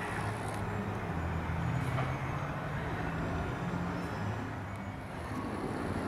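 An engine running steadily with a low hum that wavers slightly in pitch.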